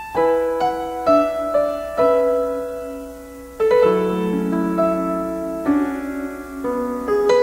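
Slow, gentle solo piano intro of a pop ballad: single notes and soft chords struck every half second to a second, each left to ring into the next, with no singing yet.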